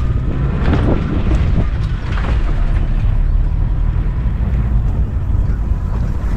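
Open safari jeep driving, its engine and tyres making a steady low rumble, with wind buffeting the microphone and a few knocks and rattles from the body.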